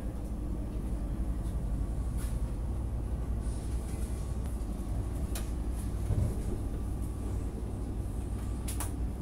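Steady low running rumble inside a CRRC-built diesel multiple unit train in motion, with a few faint clicks.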